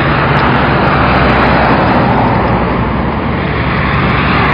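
Diesel-driven mobile wood chipper running, a steady engine drone under a dense wash of machine noise.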